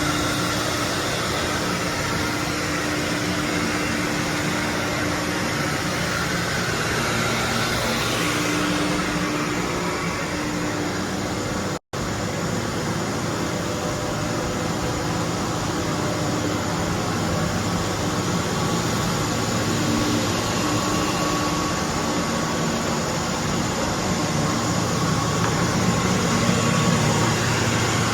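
Four-head CNC router running, a steady machine noise with hum tones that shift as it works. The sound drops out for an instant about twelve seconds in.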